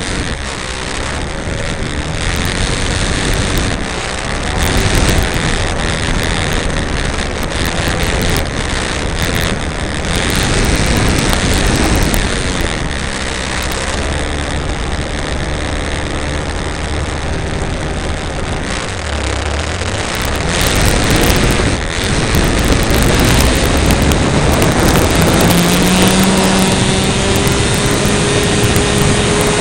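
Wind rushing over an RC model plane's onboard camera, mixed with the plane's motor and propeller running. From about three-quarters of the way through, the motor's steady note comes through clearly above the wind.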